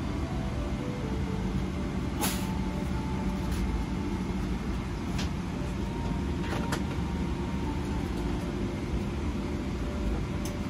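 Steady rumble and air hiss of a Boeing 777-300ER's cabin, with a few light clicks and crinkles as packaged amenity-kit items are handled on the table.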